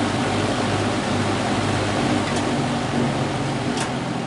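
Old GE box fan running with its grilles removed: a steady rush of air over a low motor hum, with a faint click near the end.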